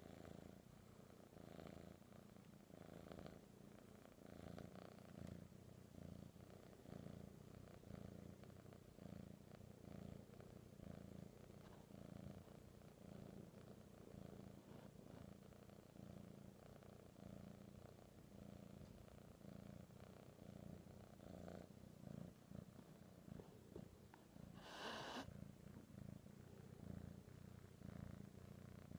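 Tabby kitten purring, a faint, steady, pulsing low rumble. A brief louder noise cuts in near the end.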